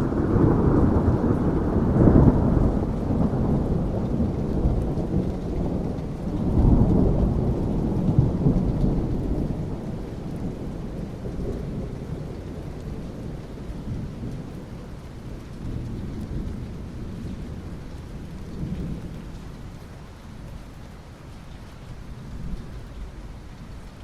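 Thunder rumbling over steady rain: a deep roll that builds at the start, swells again about two and about seven seconds in, then fades gradually, leaving the rain.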